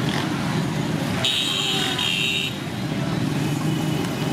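Busy street traffic running steadily, with the low rumble of engines. About a second in, a high-pitched horn sounds for just over a second.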